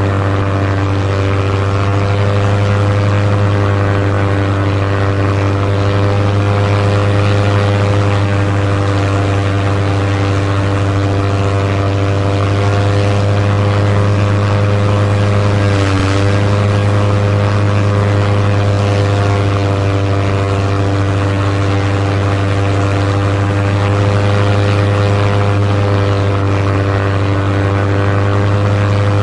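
Propeller aircraft engine running steadily with a strong low drone, its pitch dipping slightly once about halfway through.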